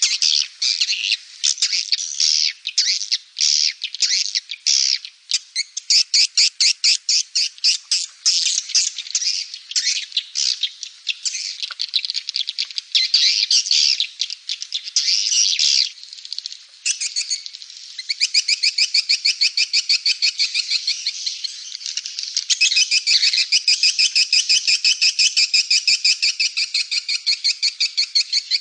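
Swiftlet lure call: swiftlets twittering in rapid chattering chirps, many to the second, played to draw swiftlets into a nesting house. About two-thirds of the way through it settles into a steadier, fast even trill.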